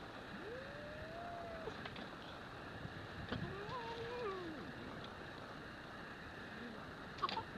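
A cat gives two drawn-out calls during a play fight, each about a second long, rising, holding and then falling in pitch, over a steady background hiss. There is a sharp tap near the end.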